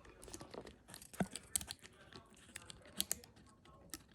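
A lock pick and tension wrench working the pin tumblers of a solid brass Master Lock trailer coupler latch lock: scattered light clicks and scrapes, with a few sharper ticks about a second in and again near three seconds.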